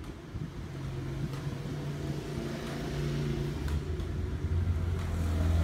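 A motor vehicle engine running close by, a low steady hum that grows louder and then drops away near the end.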